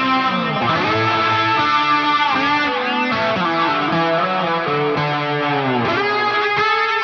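Overdriven electric guitar played through a Line 6 Helix ambient preset: long, overlapping notes with heavy effects. Several notes bend down in pitch and come back up, more often near the end.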